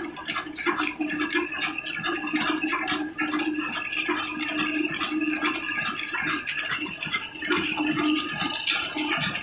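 Two old 18 HP stationary diesel engines running steadily and driving a wheat flour mill through flat belts and pulleys: a continuous, fast, rhythmic mechanical clatter with a steady hum underneath.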